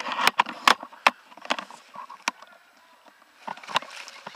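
A string of irregular sharp clicks and snaps, several close together in the first two seconds, then a quieter spell and a few more near the end.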